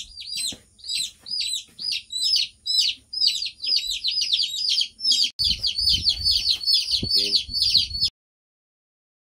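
Brahma chicks peeping continuously, many short, shrill, downward-sliding peeps a second. From about halfway a low rumbling noise runs beneath them, and the sound cuts off suddenly about a second before the end.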